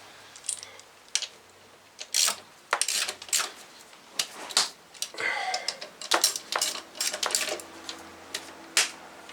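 Ratchet wrench clicking in short, irregular runs along with metal tool clicks as an alternator mounting bolt is tightened.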